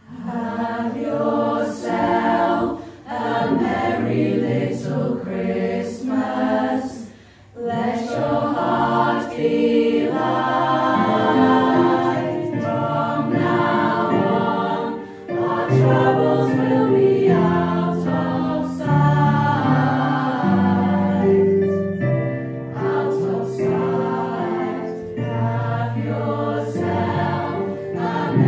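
Mixed choir of mostly female voices with a few men singing together, the phrases broken by short pauses, the longest about seven seconds in.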